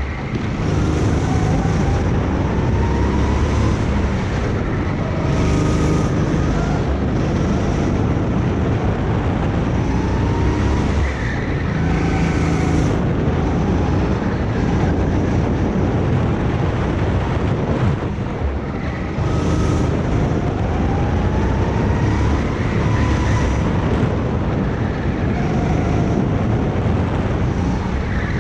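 Go-kart engine running hard, its pitch climbing and falling again and again as the kart accelerates and slows, with two short dips in level about a third and two-thirds of the way through.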